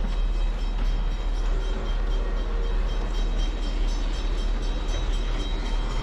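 Diesel locomotive idling steadily: a low, even rumble with a faint steady high whine over it.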